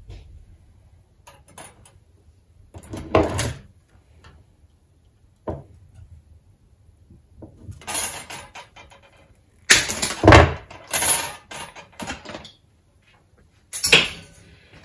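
Steel coat-hanger wire being cut with side cutters and handled on a wooden worktop: a string of separate sharp clacks and rattles, loudest about ten seconds in.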